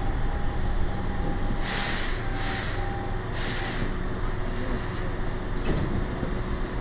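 Electric commuter train at a station platform, a low steady rumble with three short hisses of air about two seconds in.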